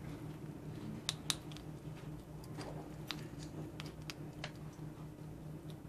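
Gray squirrel nibbling off a metal fork: irregular small, sharp clicks of biting and chewing, the two loudest about a second in. A steady low hum underneath.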